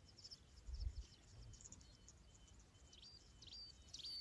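Faint natural ambience: small bird chirps and insect calls, with a short low rumble a little under a second in.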